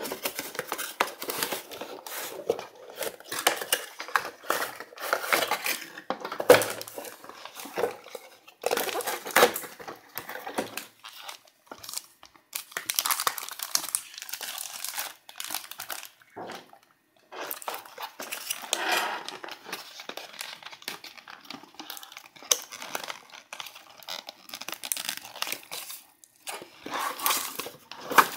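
Cardboard box packaging handled and pulled apart by hand: irregular rustling, scraping and crinkling of paperboard flaps and inserts, with a sharp knock about six and a half seconds in.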